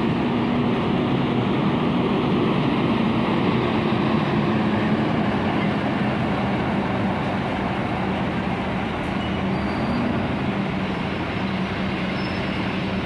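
Volvo B11R tri-axle coach's straight-six diesel engine running with a steady low drone as the coach pulls across the lot and away, the drone sinking slightly in pitch.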